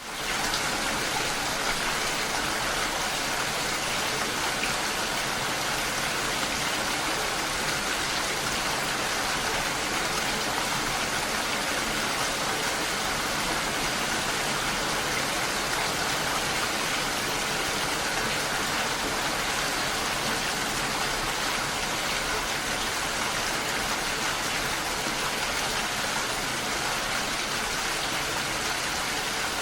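Steady rain falling: an even, unbroken hiss of rain that comes in sharply at the start and holds the same level throughout.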